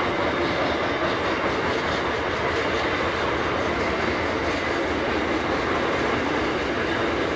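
Freight train boxcars rolling past on steel wheels: a steady, unbroken rolling rumble and rattle from the wagons on the rails.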